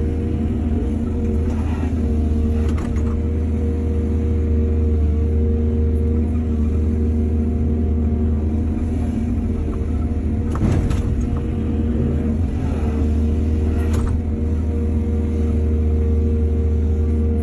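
Excavator's diesel engine running steadily under load, with a few sharp knocks, the loudest about eleven seconds in.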